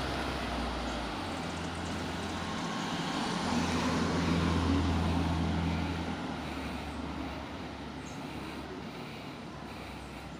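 Cars moving slowly along a street, a low engine hum with road noise that swells about four to six seconds in and then fades.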